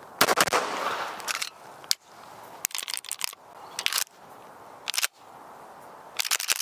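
Semi-automatic pistol being fired and worked: a fast run of loud sharp cracks near the start, then single metallic clacks from the slide being racked, roughly one a second, and a quick clatter of clicks near the end.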